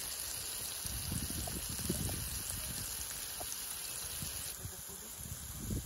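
Beef burger patties and melting butter sizzling on a hot flat-top griddle, a steady hiss, with a low uneven rumble underneath.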